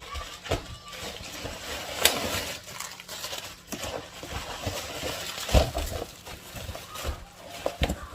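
Packaging rustling and crinkling as items are unwrapped and handled, with scattered clicks and a few sharper knocks.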